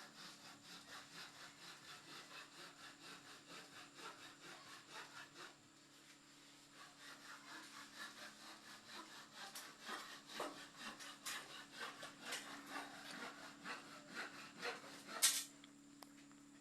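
KDK ceiling fan running with a rhythmic scraping rub, about four strokes a second, over a faint steady motor hum. The rubbing turns irregular about halfway through, and there is one sharp loud click near the end.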